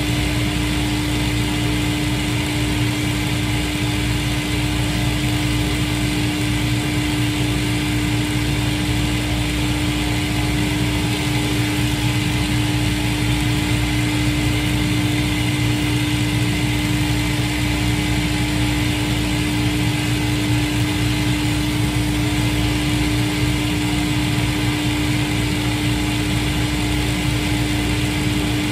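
A cobbler's shoe finishing machine running steadily, its motor and wheels giving a continuous hum with a fainter high whine.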